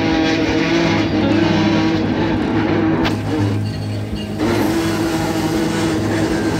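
Background music over a steady low engine drone from the fishing boat.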